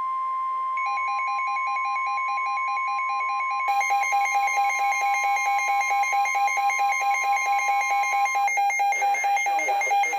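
NOAA Weather Radio 1050 Hz warning alarm tone, a steady high beep, overlaid from about a second in by a second alert tone: a lower beep pulsing several times a second, which gets louder partway through. The steady tone cuts off near the end while the pulsing beep continues and an announcer's voice begins under it.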